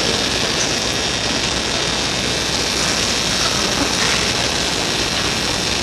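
Steady, even rushing noise of a gymnasium's background, with no distinct sounds standing out.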